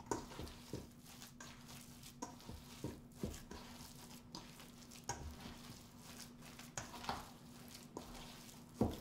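Hands kneading and squeezing a raw ground-meat meatloaf mixture in a stainless steel bowl: irregular soft squelches and light knocks against the bowl.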